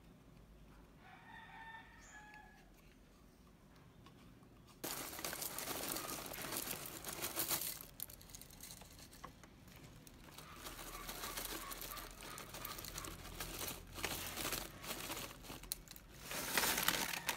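Clear plastic bag of cereal flakes crinkling and rustling as it is handled, starting abruptly about five seconds in, then dry flakes pouring from the bag into a ceramic bowl near the end.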